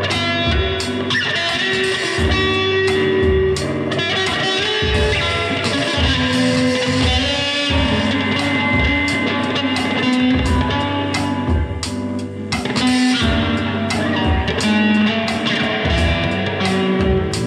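Electric guitar played through an amplifier over a backing track with a sustained bass line and regular drum hits.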